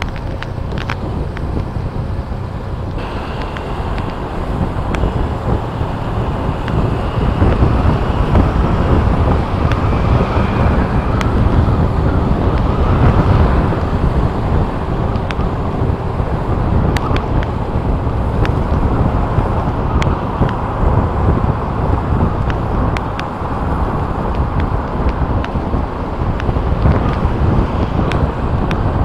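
Steady road and traffic noise from a moving vehicle, with wind rushing on the microphone.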